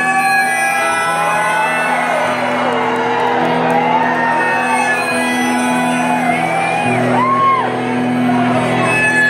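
Live rock music: electric guitar chords ringing out steadily, with whoops and shouts over them.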